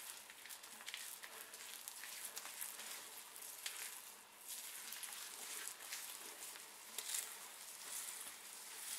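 Fingers rubbing and pressing aloe vera gel into hair: a faint crackling, rustling hiss of wet hair being worked by hand.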